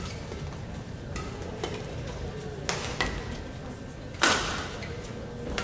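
Badminton rally: sharp racket strikes on the shuttlecock echoing in a large hall, two quick hits a little past halfway, the loudest a jump smash about four seconds in, and another near the end, over a steady low crowd murmur.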